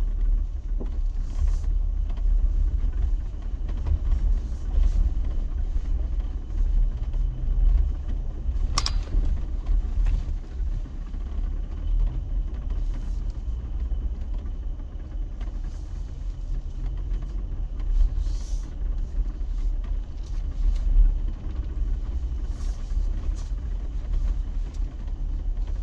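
Jeep driving slowly off road: a steady low rumble of the engine and tyres on rough ground, with one sharp knock about nine seconds in and a few fainter rattles.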